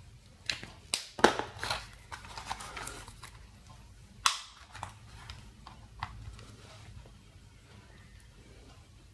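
Small handling noises of a paper test strip: rustles and light clicks as it is coloured with a marker and handled, then a sharp plastic click about four seconds in as it is pushed into the Glucometer II's strip holder.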